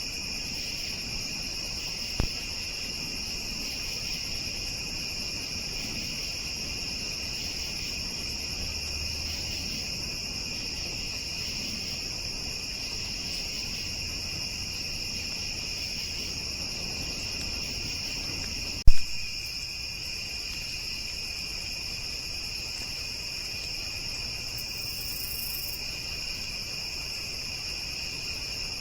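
Steady chorus of crickets and other insects, a constant high trilling. A sharp click about two seconds in, and a much louder click about two-thirds of the way through.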